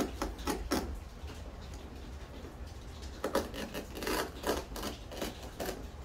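Knife cutting through the boat's deck carpet: a run of short, irregular scraping strokes, busiest around three to five seconds in.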